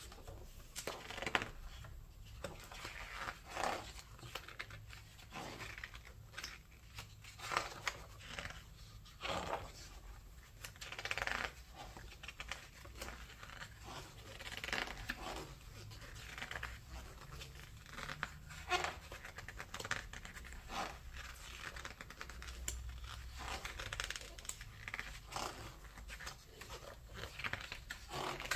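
Pages of a large hardback art book being turned one after another, each turn a short paper swish and rustle, coming every second or two.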